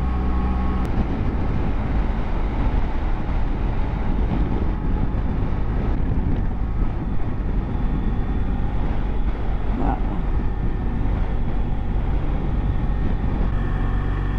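BMW F700GS parallel-twin motorcycle engine running steadily while riding at low speed, with a steady rumble of wind noise on the microphone.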